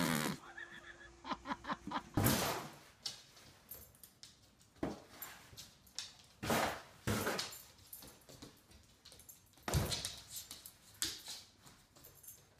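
Irregular knocks, thumps and scuffs of an animal blundering about. In the later part a dog with a box stuck over its head stumbles backwards across a laminate floor.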